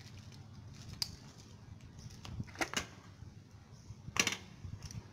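A few sharp clicks and knocks, four in all, over a low steady rumble.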